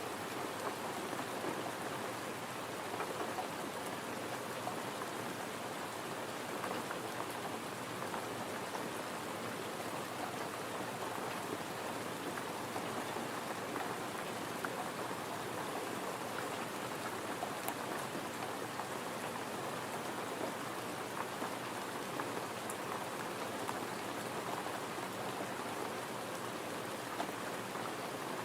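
Gentle, steady rain falling: an even hiss with scattered small ticks of drops.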